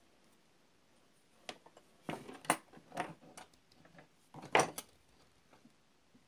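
Handling clatter of a hand vacuum pump and hand tools on a wooden workbench: a series of knocks, clicks and short rattles for a few seconds, the loudest knock about three-quarters of the way through.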